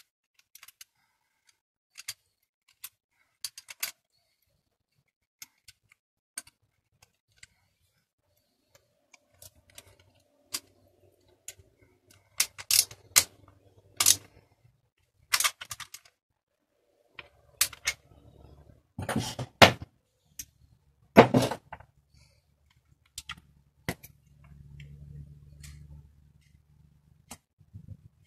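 Sharp clicks and knocks of hand tools working on a plastic BMX pedal as its axle nut is done up, scattered at first and louder and more frequent in the second half, with low rubbing noise from handling in between.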